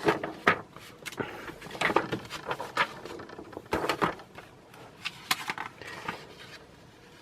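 Handling noise: a series of irregular light knocks and rustles, quieter toward the end.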